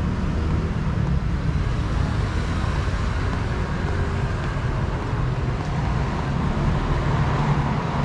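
Street traffic noise: a steady low rumble of road traffic.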